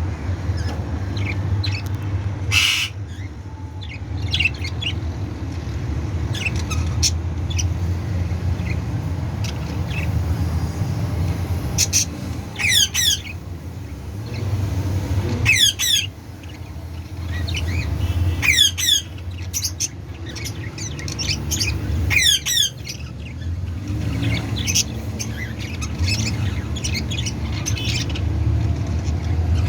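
Budgerigars in a breeding colony chirping, with several bursts of harsh, repeated squawks around the middle, over a steady low rumble.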